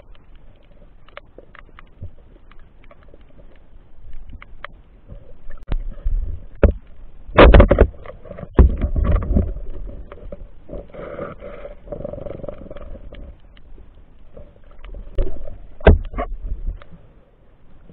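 Underwater handling noise from night spearfishing gear: muffled knocks and rubbing against the camera housing, with scattered sharp clicks throughout. The loudest knocks come in a cluster about halfway through, with another strong one near the end.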